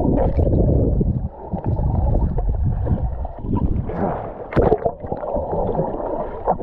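Muffled sloshing and gurgling of seawater around a camera moving in and out of the water, with splashes from a swimmer's strokes about four seconds in.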